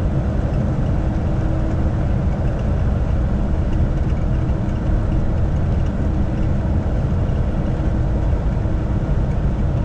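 Heavy truck's diesel engine running steadily with road rumble, heard from inside the cab while driving slowly.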